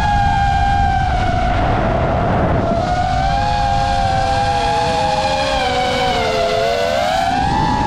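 DJI FPV drone's motors and propellers whining in flight: a high whine that splits into several tones, sags in pitch from about three seconds in, then climbs back near the end, with a low wind rumble underneath.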